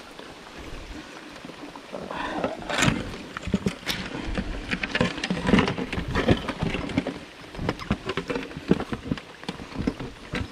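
Irregular knocks and thumps of a freshly caught bass being handled aboard a kayak, the loudest coming from about two seconds in, with rain falling.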